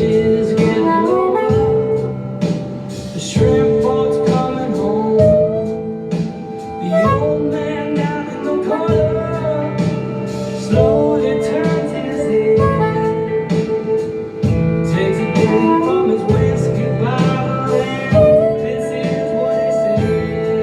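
Instrumental break of a blues-rock band song, with guitar carrying the tune over a steady beat.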